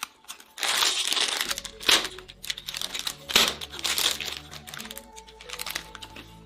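Plastic Takis snack bag crinkling and crackling as it is handled, in two loud stretches, over background music.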